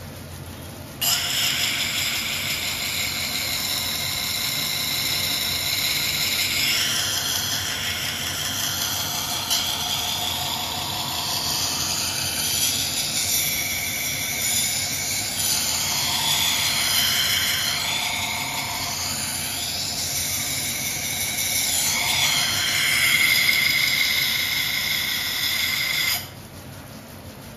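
A blade ground against the spinning wet carborundum wheel of a Kaiten mizu toishi water grinder, giving a loud, shrill grinding whose high tones keep shifting in pitch. The contact starts sharply about a second in and stops near the end, leaving the lower steady hum of the running wheel and its motor.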